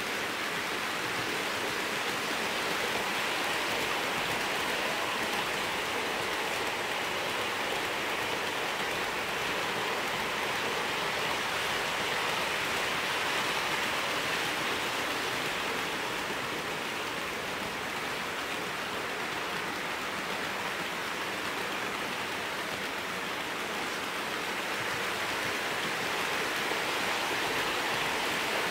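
Hornby OO gauge Class 43 HST model train running on its track: a steady rumble of wheels on rail and the power car's motor. It swells slightly about halfway through and again near the end, as the train passes close by.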